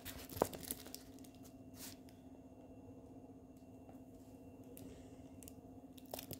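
Faint rustling and a few light taps from a diamond painting canvas in a plastic sleeve being handled, mostly in the first second and once near the end. In between is quiet room tone with a steady low hum.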